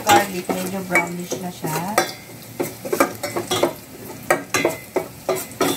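Metal utensil stirring chopped garlic frying in oil in a stainless steel pot: repeated clinks and scrapes against the pot, about three a second, over a light sizzle.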